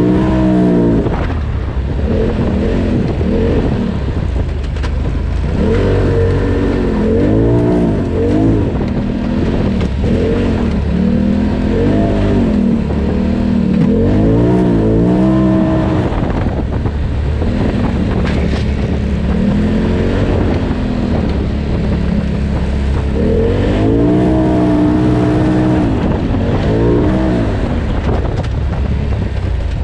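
Polaris RZR Turbo side-by-side's turbocharged twin-cylinder engine, heard from on board, revving up and easing off over and over as it is driven hard along wooded trails.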